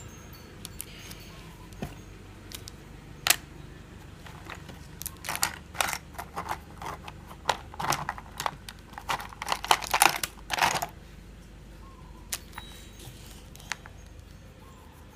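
Drawing strokes on paper: a few isolated taps, then a run of quick scratchy strokes in the middle, as when scribbling or shading, before it settles again.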